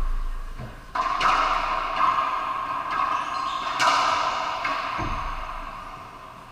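Racquetball rally: sharp hits of the rubber ball off racquets and the court walls, each ringing in the enclosed court. There are several hits about a second in, another near four seconds and one at five, and the ringing fades toward the end.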